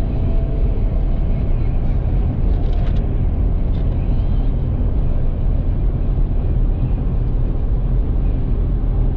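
Steady low road and engine rumble inside a car's cabin.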